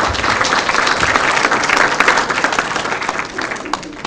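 Audience applauding: dense clapping that thins out and fades over the last second or so.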